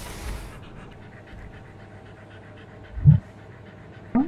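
A dog sniffing rapidly in quick short puffs, after a longer hissing sniff at the start. About three seconds in there is one loud, short, low grunt-like sound, and just before the end a brief rising call.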